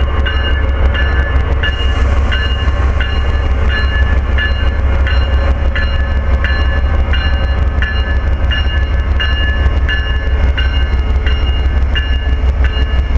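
Locomotive bell ringing steadily, about three strokes a second, over the deep rumble of an Amtrak passenger train with an ACS-64 electric and a P42DC diesel locomotive moving slowly out of the station.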